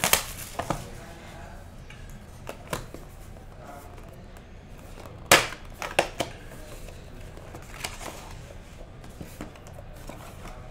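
Hands unwrapping and opening a small cardboard trading-card box: light crinkling of the wrapper and a few sharp clicks and snaps of the cardboard flaps, the loudest about five seconds in.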